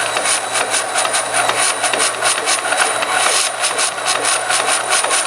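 Forrest Manufacturing 2054R traveling-table vertical bandsaw running with a steady high whine as its blade cuts through a roll of thin thermoforming plastic sheet. It is joined by a rapid, irregular crackle of pops, which the operator believes is the last layers of sheet ripping out instead of cutting cleanly.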